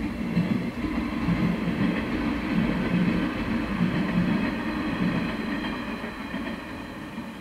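A train passing close by: a steady rumble of wheels on the rails that is loudest in the middle and fades away near the end.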